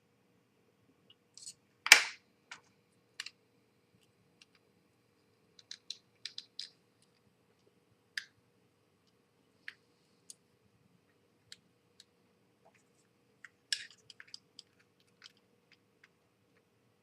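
Scattered small clicks and taps of model-kit parts and screws being handled and set down on a work surface. The loudest is a single sharp click about two seconds in, with a quick run of clicks near the end.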